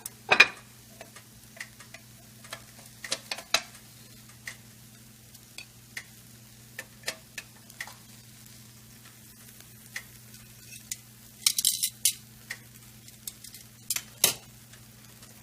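Scattered light clicks and short scrapes of a utensil on a plate while cooked cod is pulled apart into flakes, over a faint steady low hum.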